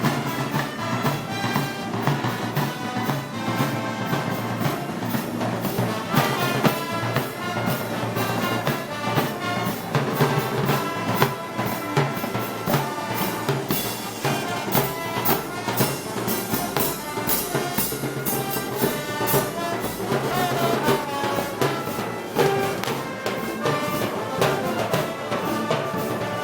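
Festival brass band music of the Moros y Cristianos kind, with trumpets and trombones over drums playing a steady beat.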